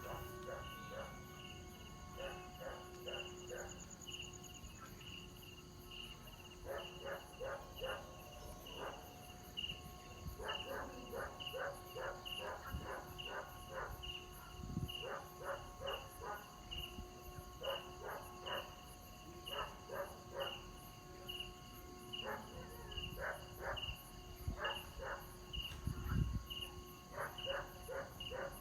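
Bamboo kite flutes of the 'train-horn' type (sáo còi tàu) on a kite in flight, holding a steady chord of droning tones that fade out and come back every few seconds as the wind varies. Crickets chirp throughout in quick pulsing runs.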